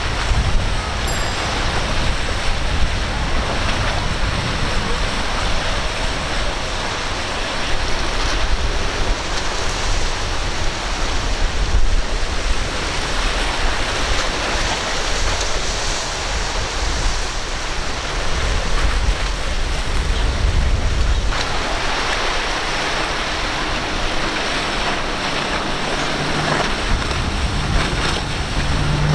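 Waves and boat wake washing and breaking, with wind buffeting the microphone as a low rumble. Outboard motors of passing boats run faintly underneath, with a low steady engine hum near the end.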